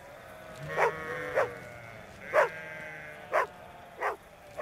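A tightly packed flock of sheep calling: drawn-out bleats overlaid with short, sharp calls that drop in pitch, coming about once a second.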